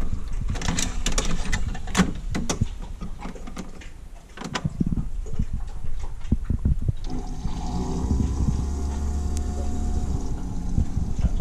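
Single-serve pod coffee brewer: a run of clicks and knocks in the first few seconds, then from about seven seconds its pump runs with a steady hum and a hiss of water as it brews.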